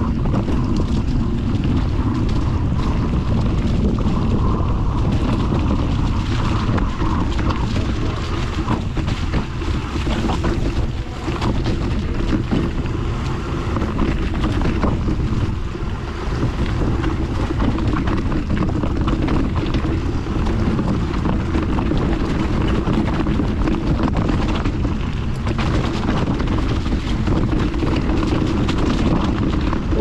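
Wind buffeting a camera microphone on a moving mountain bike: a steady low rumble, with scattered faint clicks and knocks from the bike.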